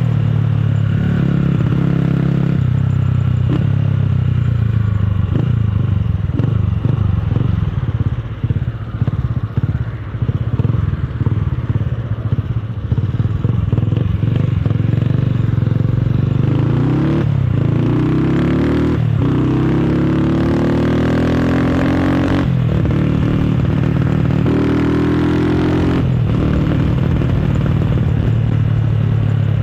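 Motorcycle with a loud aftermarket exhaust. For the first several seconds it runs off the throttle with rapid, irregular popping and crackling from the exhaust. It then accelerates hard through three upshifts, the pitch rising in each gear, and settles to a steady cruise near the end.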